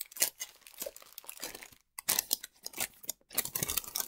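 Paper wrapping crinkling and tearing as a small gift parcel is unwrapped by hand: irregular crackles with a couple of brief pauses.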